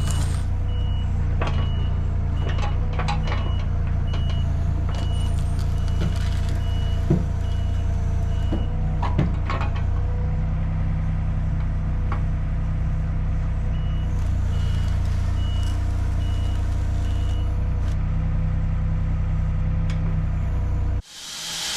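A machine's engine running steadily, its backup alarm beeping in a regular on-off pattern through the first several seconds and again later, with scattered knocks and clunks. Just before the end the engine sound cuts off abruptly and loud hissing noise takes over.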